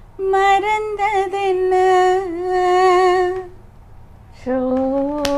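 A woman singing a Tamil film song unaccompanied, holding one long, slightly wavering note that ends about three and a half seconds in. About a second later a second, lower voice starts a held note.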